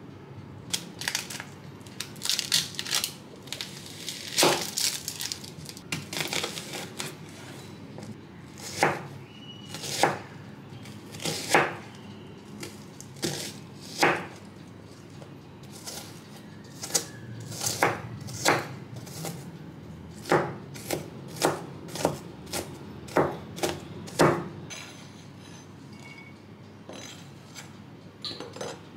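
Kitchen knife chopping an onion on a plastic cutting board: a run of sharp, irregular knocks, about one or two a second, that stops a few seconds before the end.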